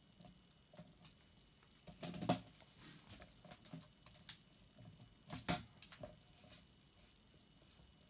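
Small clicks and taps from handling a metal GK connector shell and a small screwdriver, with two louder knocks a little after two seconds and about five and a half seconds in.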